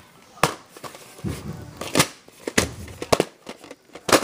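A few sharp clicks and knocks, the loudest near the end, with stretches of low muffled rustling between them: handling noise close to the microphone.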